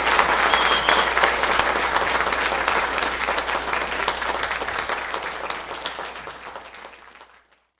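Audience applauding, dense clapping that gradually thins and fades away near the end.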